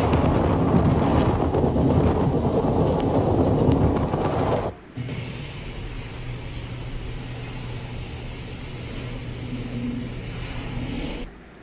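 Hurricane-force wind buffeting the microphone in a loud, rushing roar with driving rain. About five seconds in it cuts to a quieter, steadier storm wind with a faint low hum underneath.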